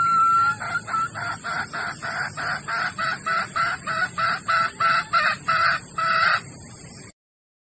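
Female red junglefowl (Sumatran) hen in breeding condition, calling to attract males. One held note is followed by a rapid, even run of clucking calls, about three a second, which stop shortly before the recording cuts off.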